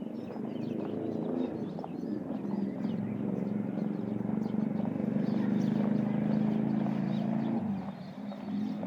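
A low engine hum that grows louder and then drops away about eight seconds in, with small birds chirping over it.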